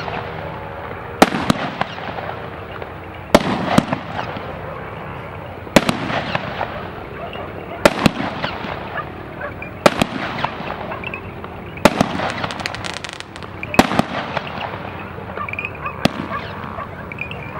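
A 64-shot fireworks cake firing one shot at a time: eight sharp bangs about two seconds apart, each followed by a fading hiss and crackle as the comet and its burst go off. There is a brief flurry of small crackles about twelve seconds in.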